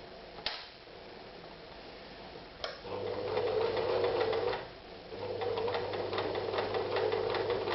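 Privileg Super Nutzstich 314 household sewing machine stitching through leather with a straight stitch. It runs in two stretches, from about three seconds in with a short stop near the five-second mark, as a steady hum with fast needle ticking. A couple of single clicks come before it starts.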